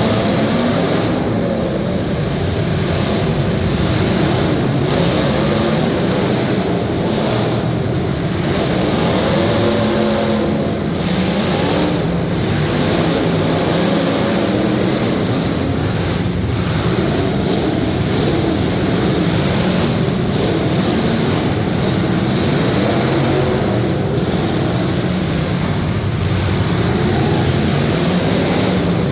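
Several limited-weld demolition derby cars' engines running and revving together, their pitch rising and falling over and over.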